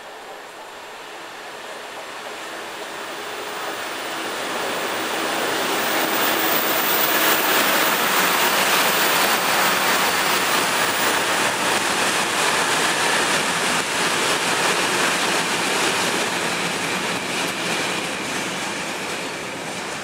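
A Colas Rail Class 66 diesel-electric locomotive, with its two-stroke V12 engine, runs through at speed, followed by a rake of hopper wagons rumbling over the rails. The noise builds over the first six seconds as the train nears, stays loud while the wagons pass, and eases slightly near the end.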